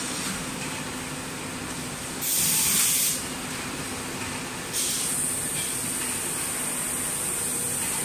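HIPS sheet extrusion line machinery running with a steady hum. A loud hiss comes in about two seconds in and lasts about a second, and a steady high hiss starts about five seconds in.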